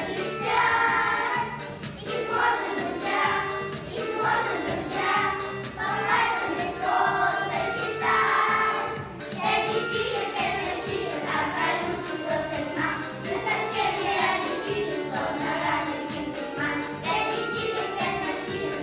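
A group of children singing a song together in chorus, with instrumental accompaniment.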